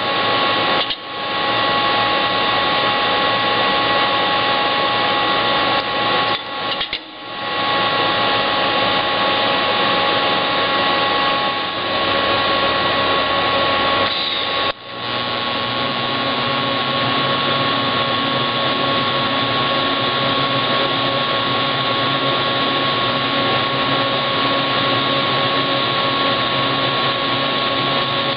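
Steady loud whir of workshop machinery with a few steady tones through it. It dips briefly three times, and after the last dip, about halfway through, a lower hum joins.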